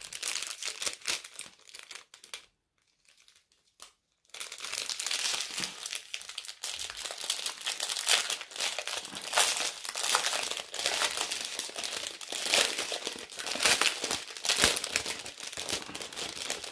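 Plastic packaging crinkling and crackling as it is handled and pulled open, with a short quiet pause about three seconds in.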